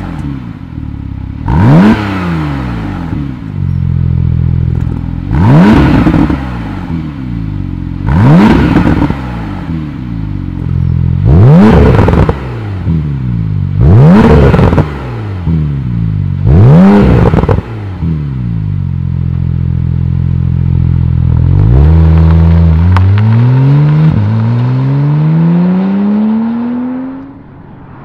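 Porsche 991.2 Carrera 4 GTS twin-turbo flat-six exhaust through an aftermarket rear silencer with its flaps open, revved six times from idle, each rev rising and falling quickly, with idling between. Later the car accelerates hard with one upshift, and the sound fades near the end.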